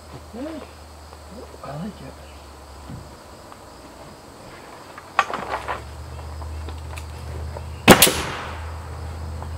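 Pneumatic nail gun driving nails into rough-sawn wooden siding: two sharp, loud shots, one about eight seconds in and one at the very end, after a few lighter knocks about five seconds in. A low steady hum runs behind from about halfway.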